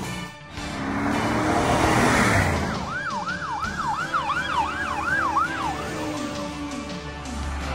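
Emergency vehicle's electronic siren in a fast yelp, sweeping up and down about twice a second for some three seconds, with vehicle noise underneath.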